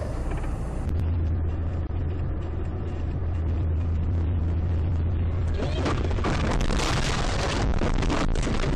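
In-cabin drone of a moving car, then about five and a half seconds in a sudden loud crash lasting about two seconds: impact noise with crunching and breaking glass as the car goes off the road.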